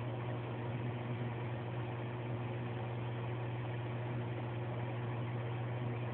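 Steady electric hum with even hiss from running aquarium equipment, such as a filter or air pump, unchanging throughout.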